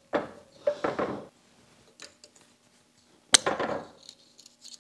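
Steel screwdriver working a retaining C-clip on a U-joint: clinks and scraping of metal on metal in the first second or so, then one sharp metallic click about three and a half seconds in.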